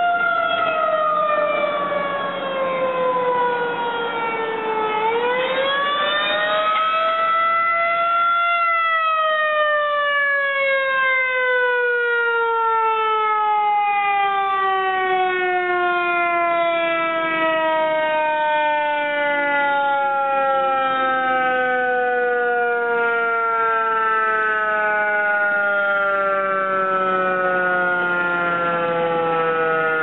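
Federal Signal Model 2001 electromechanical outdoor warning siren sounding. Its pitch falls, rises again about five seconds in, then falls slowly and steadily for the last twenty seconds as the siren winds down.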